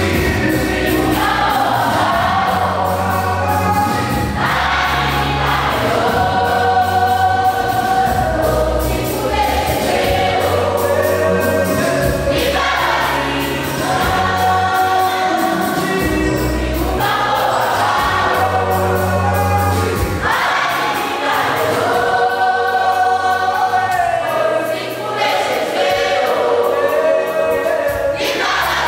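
Church choir singing a gospel song together, over an instrumental accompaniment with deep sustained bass notes.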